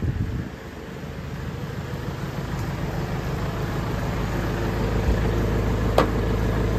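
Engine idling steadily, growing gradually louder, with one sharp click about six seconds in.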